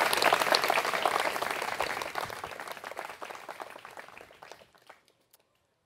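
Crowd applauding, a dense patter of many hands clapping that fades out over about four and a half seconds.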